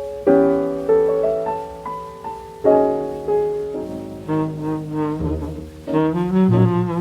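Slow swing-era jazz ballad played from a 78 rpm record: piano chords ring and fade, then a tenor saxophone comes in about four seconds in with held notes and a wide vibrato.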